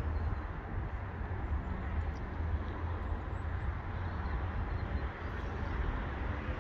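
Wind buffeting the microphone outdoors: a steady, uneven low rumble over a faint background hiss.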